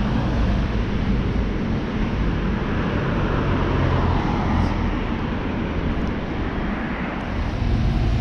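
Road traffic: a motor vehicle's engine and tyre noise passing close by, swelling a little midway.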